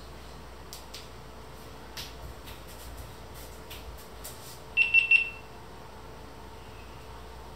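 Three quick, high electronic beeps from a small action camera, the kind of signal such a camera gives when recording starts or stops.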